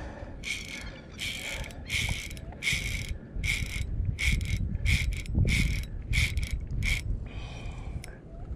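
Fishing reel ratcheting in short scratchy bursts, about two a second, as a hooked giant herring is played on light line; the bursts stop about seven seconds in.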